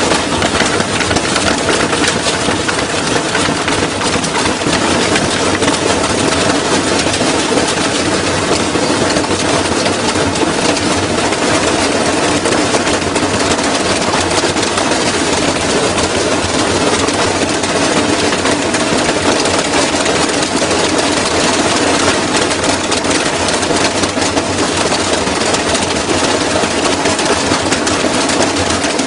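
Washing machine running with bricks and metal pieces loose in its drum: a loud, continuous clatter of knocks over the steady drone of the machine.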